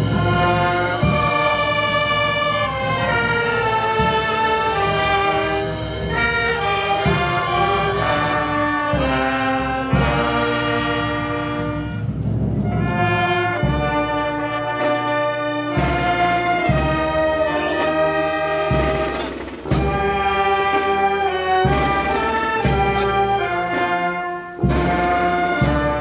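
Brass music playing a slow, solemn melody in held chords, joined in the second half by a steady low drum beat about every second and a half.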